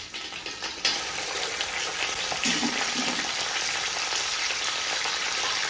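Raw chicken pieces going into hot desi ghee and oil with golden-browned sliced onions: a loud sizzle starts suddenly about a second in and carries on steadily as the chicken begins to fry.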